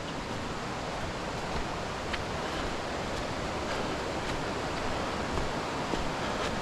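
Steady rush of moving water with a few faint ticks scattered through it.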